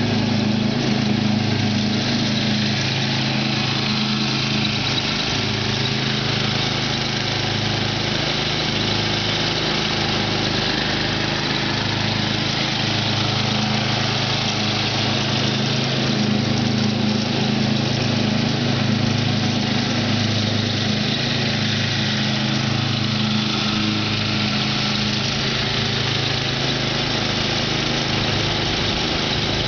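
Riding lawn tractor's engine running steadily at an even speed while mowing grass.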